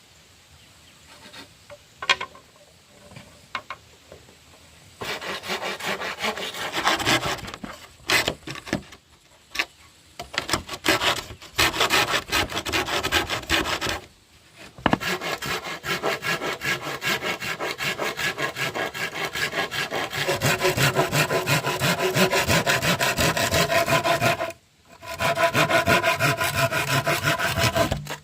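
Hand saw cutting through wood in fast back-and-forth strokes. A few light knocks come first, then the sawing starts about five seconds in and goes on in long runs with brief pauses between them.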